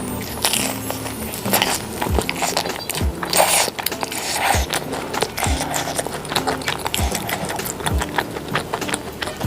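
Background music with a steady beat, over close-up crunching and chewing of crispy fried food.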